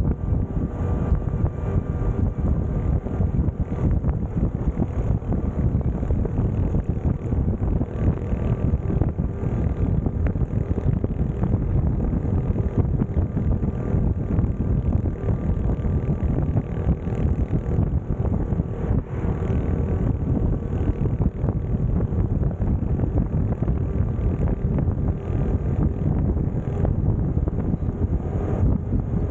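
Wind buffeting the microphone over the steady drone of a Honda CT125's air-cooled single-cylinder engine, cruising at a constant speed.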